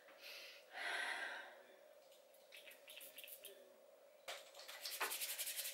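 A short spritz from a small glass hair-oil spray bottle, then a few faint clicks and palms rubbing quickly together to spread the oil.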